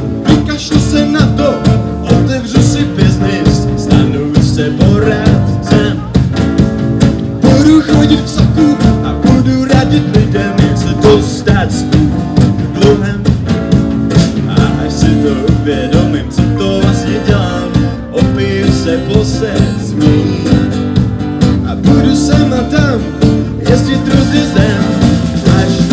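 Live band playing amplified through a PA: strummed acoustic guitar, electric piano, electric bass and drum kit keeping a steady beat.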